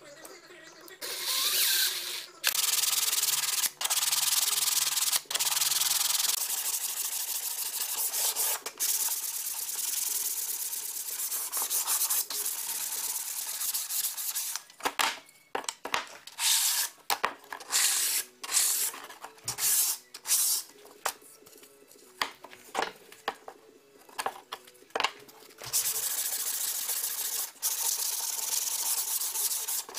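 Sandpaper on a sanding block rubbing along the edges of Baltic birch plywood by hand, a dry scratchy hiss. It runs in long continuous strokes at first, then in short quick strokes with brief pauses between them, then steadies again near the end.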